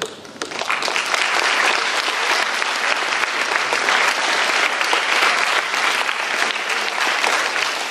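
Audience applauding, a dense steady clapping that starts about half a second in.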